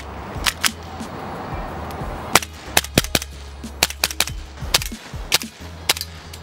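FNX-45 Tactical gas blowback airsoft pistol firing a string of sharp shots, each with the snap of the slide cycling. Two shots come about half a second in, then a rapid, uneven run of several a second from a couple of seconds in, over background music.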